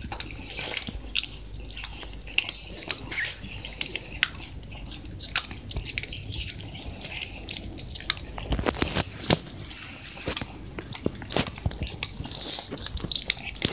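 A Shiba Inu chewing a milk-flavoured dog chew: irregular clicks and crunches of its teeth, with a few sharper bites about nine seconds in.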